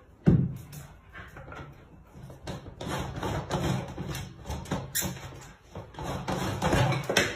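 A single loud thump just after the start, then an irregular low murmur with light knocks.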